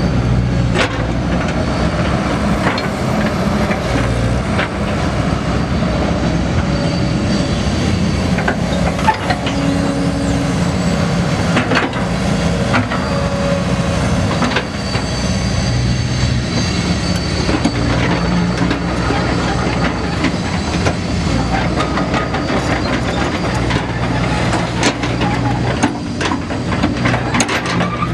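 Kobelco K905LC-II excavator's Mitsubishi four-cylinder diesel engine running while the boom and bucket are worked, its note swelling and easing several times, with scattered clanks and knocks from the machine.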